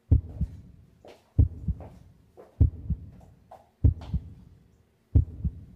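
Heartbeat sound effect: deep lub-dub thumps, each pair about a third of a second apart, repeating slowly about every one and a quarter seconds, five beats in all.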